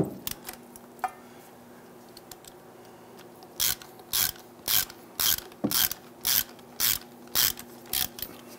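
Hand ratchet clicking in short bursts, about two a second, as it backs out the Torx bolts on a drive shaft's coupler flange.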